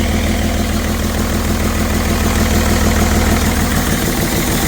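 BMW 330d's M57 straight-six diesel running steadily at idle with a failed turbocharger, which has been pushing oil through into the intake.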